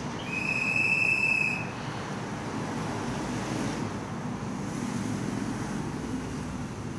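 Shonan Monorail suspended cars standing at a station platform with a steady low hum, broken about a quarter second in by one high electronic beep lasting about a second and a half.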